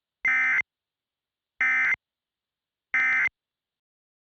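Three short bursts of Emergency Alert System digital data tones, the SAME end-of-message code, each about a third of a second long and spaced about a second and a third apart. They mark the end of the alert message.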